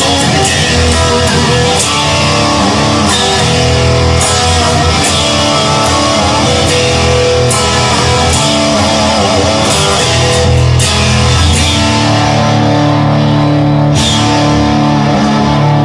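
Instrumental rock music with loud guitars, bass and drums.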